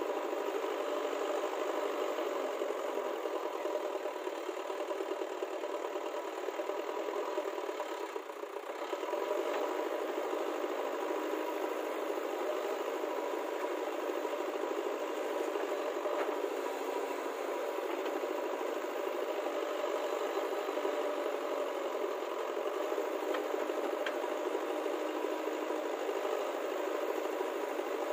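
Diesel engines running steadily with a rattle, from a JCB backhoe loader working its digging arm and a tractor standing beside it. The sound dips briefly about eight seconds in.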